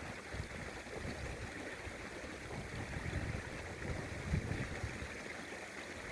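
River water rushing steadily, with strong wind buffeting the microphone in irregular low gusts.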